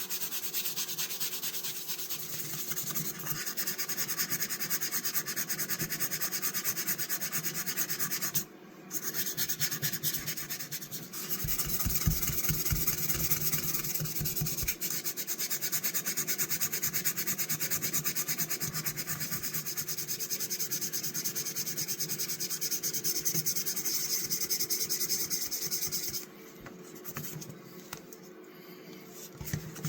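Fine 2000-grit sandpaper backed by a wooden block rubbed in quick, steady back-and-forth strokes on a pocket knife blade, the hand-sanding stage of removing wear before polishing. The strokes pause briefly about a third of the way in and ease off near the end.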